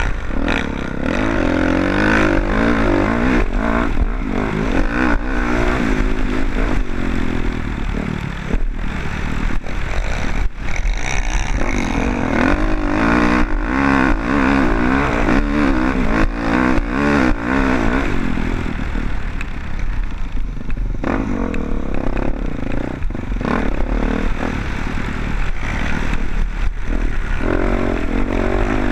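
Motocross dirt bike engine revving hard, its pitch swinging up and down with the throttle, mixed with frequent knocks and rattles. About two-thirds of the way through the engine note drops off for a couple of seconds, then picks up again.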